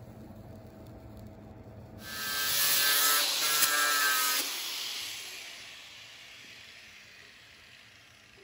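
Whoosh transition sound effect: a smooth swell of noise about two seconds in, holding with a faint ringing tone for a couple of seconds, then dropping and fading away slowly. A low steady hum sits underneath before it.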